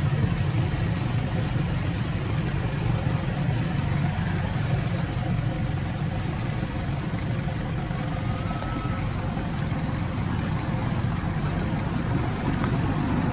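Steady low rumble of outdoor background noise, with no clear separate event standing out.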